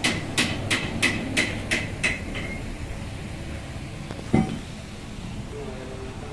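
A hammer striking metal in quick, even blows, about three a second, each blow ringing, for about eight blows before it stops. A single duller thud comes a couple of seconds later.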